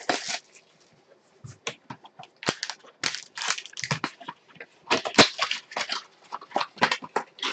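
Irregular crackling and scraping of cardboard and foil as a trading card hobby box is opened by hand and a foil-wrapped card pack is taken out and set down.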